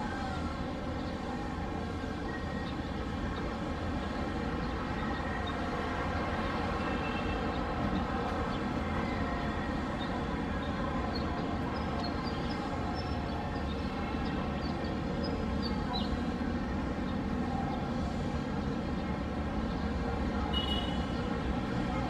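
Steady distant city traffic rumble, with a few faint high chirps about halfway through and one near the end.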